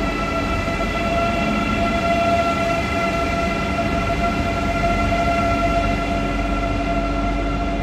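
Deutsche Bahn ICE high-speed electric train moving slowly past along the platform: a steady whine of several held tones over a low rumble.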